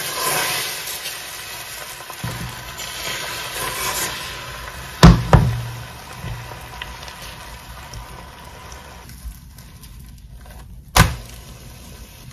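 Beaten egg sizzling as it is poured into a hot frying pan and spreads, the sizzle strongest at first and easing off. Sharp knocks come twice close together about five seconds in and once more near the end.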